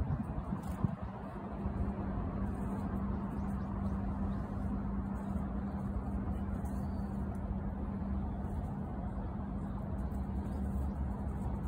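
Steady low rumble of motor traffic with a constant low hum.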